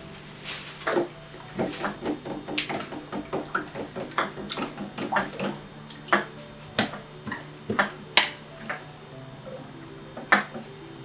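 Hand-washing of pots and pans: an irregular run of sharp clinks and knocks of cookware and utensils, busiest in the first half, with a loud knock about eight seconds in, over a steady droning music tone.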